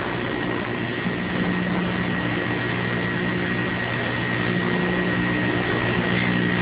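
Steady electrical hum with a constant hiss and a thin high whine: background noise of an old videotaped TV recording.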